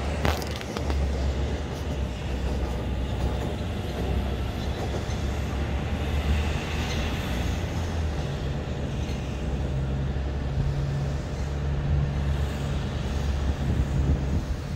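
Steady outdoor city ambience: a continuous low rumble, with a low steady hum joining about eight seconds in.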